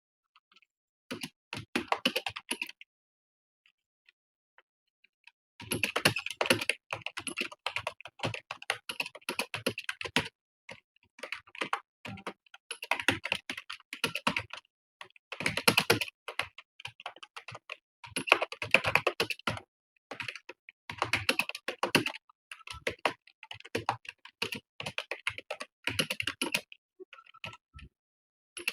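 Fast touch-typing on a computer keyboard: rapid runs of key clicks lasting a few seconds each, broken by short pauses, with a longer pause early on.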